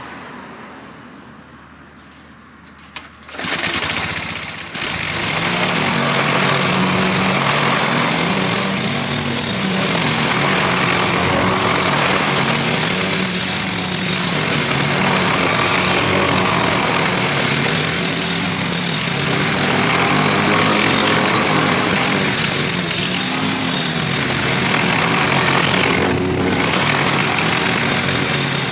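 Gasoline lawn mower engine starting about three seconds in, then running steadily while mowing grass.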